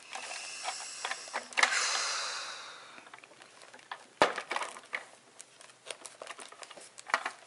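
Craft-table handling noises: a scratchy rasp that starts sharply and fades out over about a second and a half, then a single sharp knock and a few light clicks.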